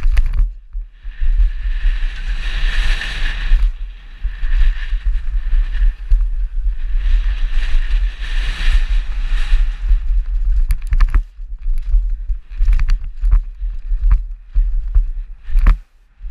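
Downhill mountain bike descending a dirt and gravel trail at speed, heard from a camera on the rider: constant wind rumble on the microphone with tyre noise over the dirt, swelling twice into a loud hiss. In the last few seconds the bike clatters with sharp clicks and rattles over rougher ground.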